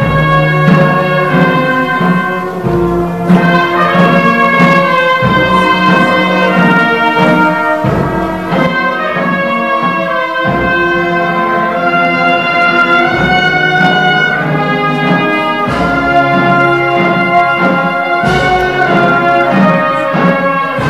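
Brass band playing a slow processional march, with sustained brass chords and a low drum beat about every two and a half seconds.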